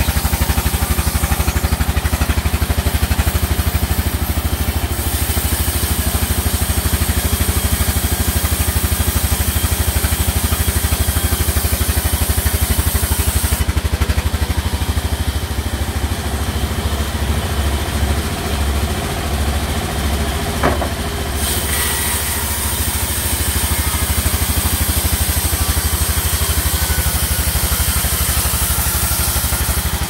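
Large log-sawmill band saw and its drive running steadily, with a low pulsing drone and a high hiss that comes and goes; a brief high squeak about two-thirds of the way through.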